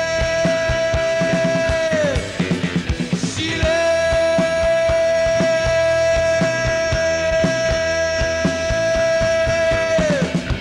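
Live rock band playing: a long held high note slides down and breaks off, then comes back after a short run of drum hits and is held again until it falls away near the end, with drums beating under it.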